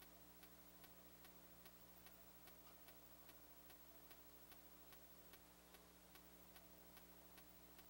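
Near silence: a faint steady hum with faint, evenly spaced ticks about two and a half times a second.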